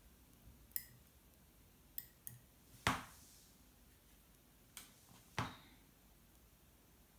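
Six short, sharp taps and clicks of painting tools on a hard surface, the loudest about three seconds in and a second strong one near the end.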